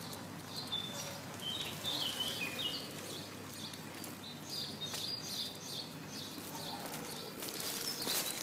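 Small birds chirping: a run of short, high chirps, some stepping down in pitch, over a steady background hiss.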